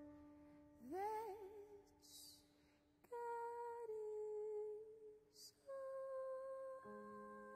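A woman sings wordless held notes over soft jazz piano. About a second in, one note slides up and wavers with vibrato, followed by two long sustained notes. A piano chord is struck near the end.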